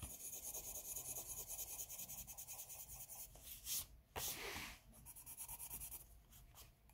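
Pencil rubbing on paper in quick, even back-and-forth strokes. The strokes pause a little past the middle with a brief louder rustle, then resume more softly.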